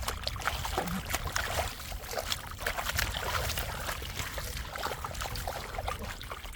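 Shallow floodwater splashing and trickling in many small, irregular sploshes, over a steady low rumble.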